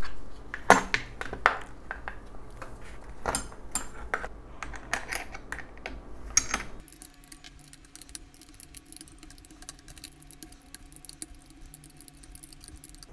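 Clicks and clinks of a small metal screwdriver tool, a screw and a plastic mudguard knocking against a tricycle's metal fork as the mudguard is fitted. From about seven seconds in, the knocks give way to faint, rapid ticking as the screw is turned in.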